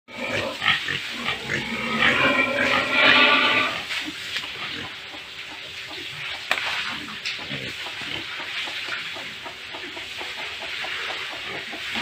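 Pigs squealing and grunting loudly for the first few seconds, then quieter, rapid chomping and smacking as they eat from a concrete trough.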